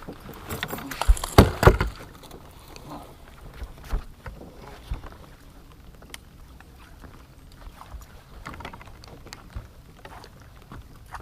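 Knocks, clicks and handling noise aboard a small fishing boat while a fish is being fought, with a few loud bursts in the first two seconds and scattered short clicks after.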